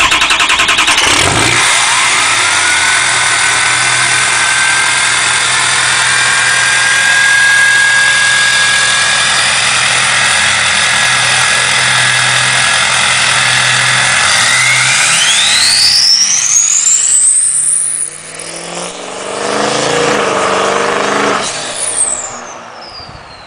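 Ford Power Stroke turbo-diesel with a 4-inch MBRP turbo-back exhaust and aFe Stage 2 intake cranks and fires about a second and a half in, then runs with a steady turbo whistle over the diesel clatter. About two thirds of the way through, the turbo whistle climbs sharply as the truck accelerates away. The sound fades, swells briefly, and the whistle falls away near the end.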